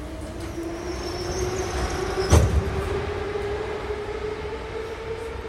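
Interior running noise of an 81-717/714 metro car: a low rumble with a tone that rises slowly and then holds steady. A single sharp knock sounds about two seconds in.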